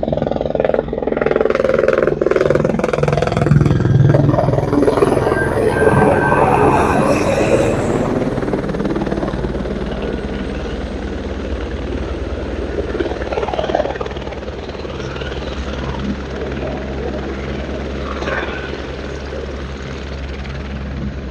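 Helicopter coming in to land. The rotor and engine noise is loudest in the first seven or eight seconds, then eases to a steady, lower running sound.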